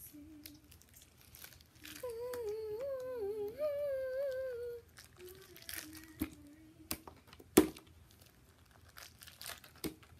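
A child humming a wavering tune for about three seconds, with quieter hummed notes before and after, over the crinkling and crackling of a plastic zip-top bag as slime is squeezed out of it. The loudest sound is a sharp plastic crackle about three quarters of the way through.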